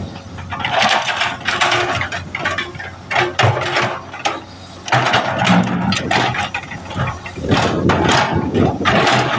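Komatsu PC200 excavator's diesel engine running, with irregular surges of rattling and clanking.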